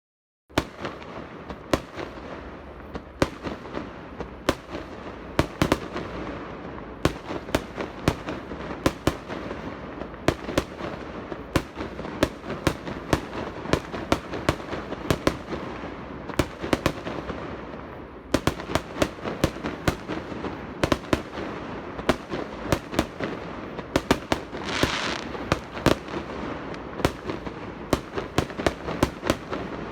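Fireworks display going off in a dense barrage: sharp bangs several times a second over continuous crackling. It starts after a moment of silence, and about 25 seconds in a short hissing rush rises above the bangs.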